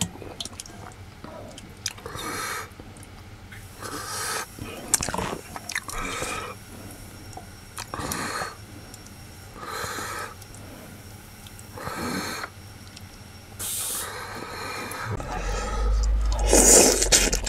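A man eating stew close to a clip-on microphone: chewing, with heavy breaths about every two seconds, and a louder slurp as a spoonful of meat goes into his mouth near the end.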